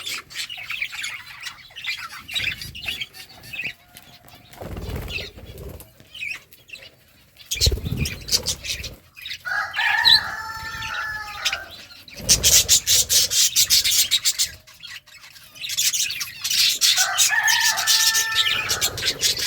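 Pet budgerigars chattering and chirping, with louder squawky calls about halfway through and again near the end. Wings flutter and thump in between.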